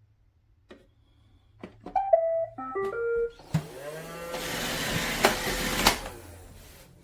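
iRobot Roomba robot vacuum playing its short electronic tune of beeps at several stepped pitches, then its motor spinning up with a rising whine and running briefly with a hiss before stopping about six seconds in.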